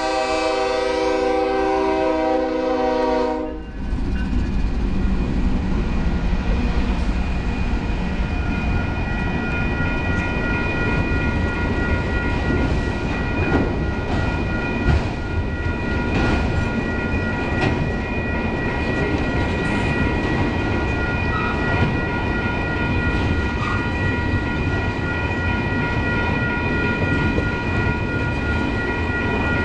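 Freight locomotive air horn sounding a chord, cutting off about three and a half seconds in. Then autorack freight cars roll past close by with a steady rumble and clatter of wheels on rail and a few clanks, while the grade-crossing bell rings on as steady high tones.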